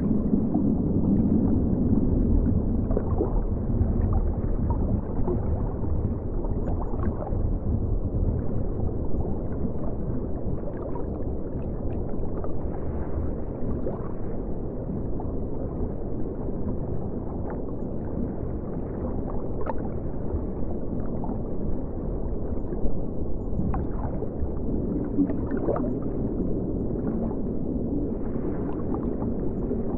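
Steady, muffled rush and gurgle of flowing river water, heard underwater, with scattered faint ticks.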